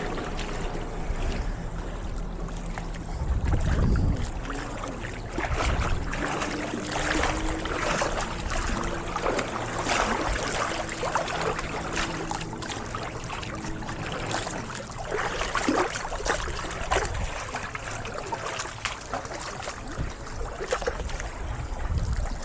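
Seaside ambience with a steady low engine hum and the wash of water. Wind buffets the microphone about four seconds in.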